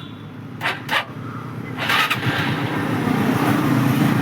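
Hero Super Splendor's 125 cc single-cylinder four-stroke engine on electric start: a few clicks, then about two seconds in it catches and settles into a steady run. The engine has a newly fitted timing chain and fresh oil.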